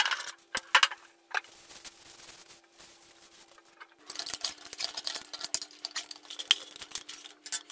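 Metal paint cans handled by hand: scattered clinks and taps, then from about four seconds in a dense run of clicking and scraping as the lid of a quart paint can is worked open. A faint steady hum runs underneath.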